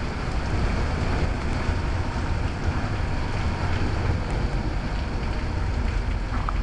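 Steady rain hiss with wind buffeting the microphone, a fluctuating low rumble under it.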